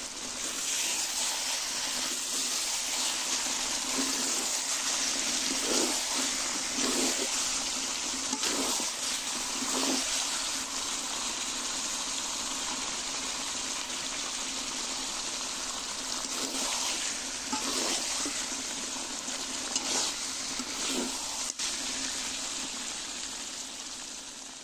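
Duck curry sizzling steadily in a wok over high heat, the thick gravy frying and bubbling. Short, louder strokes come several times in the first half and a few more later, and the sound fades near the end.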